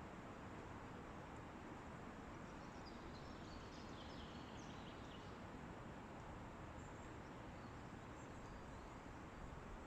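Faint, steady wind in forest trees, with soft high bird chirps coming in a few times between about a quarter and half of the way through and once more later.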